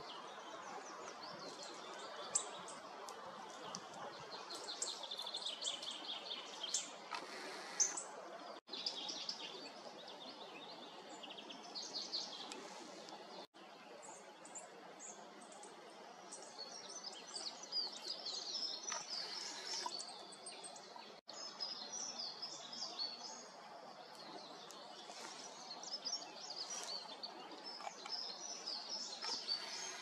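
Small forest songbirds singing and calling, with many quick, high chirps and trills overlapping, over a steady background hiss.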